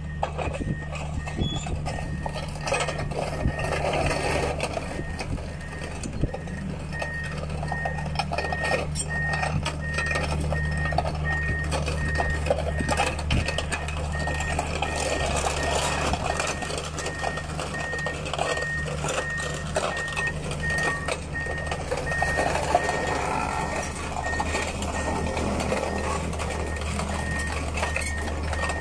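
Backhoe engine running steadily under load, with a reversing alarm beeping at an even rate from about seven seconds in, and scattered clanks and knocks.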